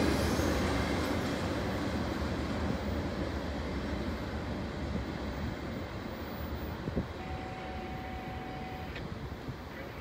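Rail cars of a CSX rail train rolling away down the track, the rumble of the wheels fading steadily as the last car draws off.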